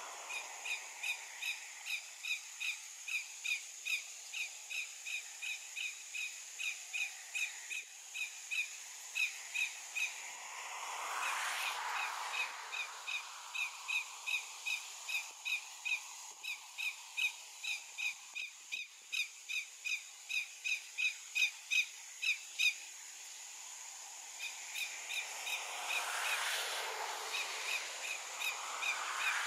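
Greater yellowlegs alarm call: a long, even series of short notes, about two or three a second, with a couple of short breaks. A broad rushing noise swells and fades about a third of the way in and again near the end.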